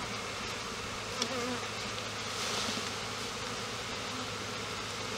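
A colony of honeybees buzzing steadily around an open hive, with a constant low hum.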